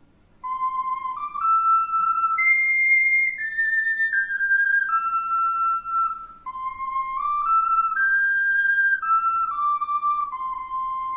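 A flute playing a slow solo melody in stepped notes, one clear line of single notes in two phrases. The second phrase ends on a long held note near the end.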